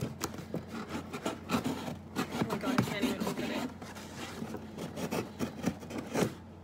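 Scissors cutting open a cardboard shipping box: the blade scraping and slicing through the cardboard in an irregular run of rasping strokes, with small sharp clicks and knocks.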